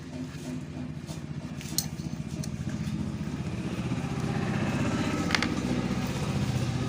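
Engine running with a fast, even beat, getting gradually louder; a sharp click about five seconds in.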